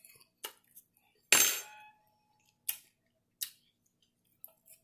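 Metal fork clicking and clinking against a plate of nachos a few times, the loudest strike about a second and a half in ringing briefly.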